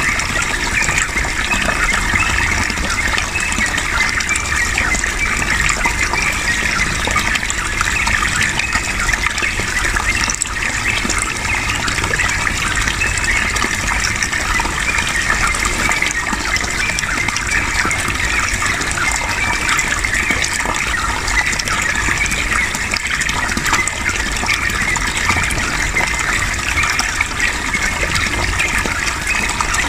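Steady gushing flow of running water, with rapid, chattering song of a yellow-vented bulbul (trucukan) mixed in.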